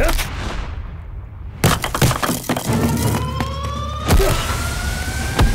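Fight-scene sound effects: a heavy hit at the very start with a whoosh trailing off after it, and further hard impacts about a second and a half and four seconds in. Over the second half, a tone rises slowly and steadily in pitch.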